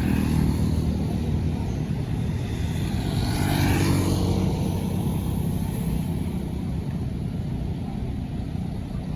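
Tour bus diesel engine running with a low rumble that eases off over the first couple of seconds, and a brief rushing swell of noise about three to four seconds in.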